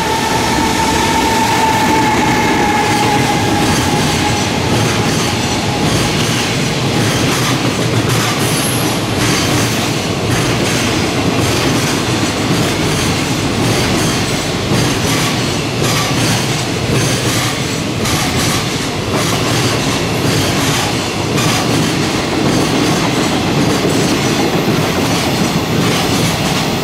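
Freight container train running through the station: the wheels clatter rhythmically over the rail joints as the wagons go by, under a steady rumble. In the first few seconds a high whine falls slightly in pitch and fades as the locomotive passes.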